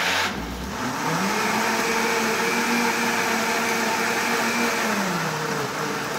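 Countertop blender starting up and running, blending a liquid cake batter of water, coconut milk, mint, ginger, sugar and cornmeal. The motor climbs in pitch about a second in, runs steadily, and its pitch drops a little near the end.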